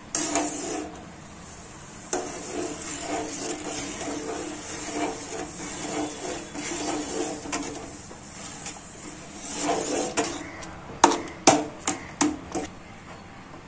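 Perforated steel ladle stirring and scraping against a steel pot as roasted semolina is stirred into boiling carrot juice and water, in a steady rhythm of strokes. Near the end come a few sharp metallic knocks.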